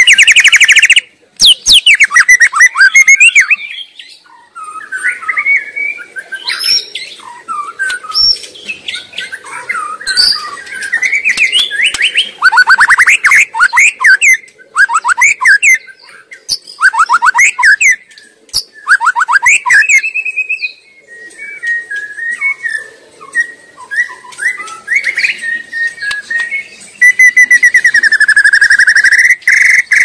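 White-rumped shama singing: a loud, varied song of clear whistles and fast runs of notes in separate phrases with short pauses between them, ending in a long rapid trill near the end.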